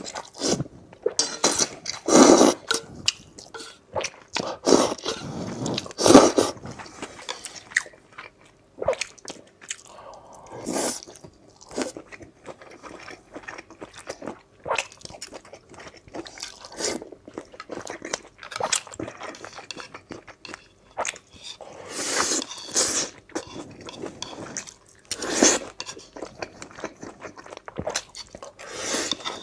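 Close-miked eating: noodles slurped up in long noisy bursts, with chewing and crunchy bites in between, irregular throughout.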